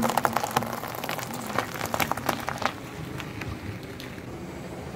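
Car tyre rolling onto and crushing a whole cucumber: a sudden crack at the start, then a run of crackling and snapping that dies down after about two and a half seconds.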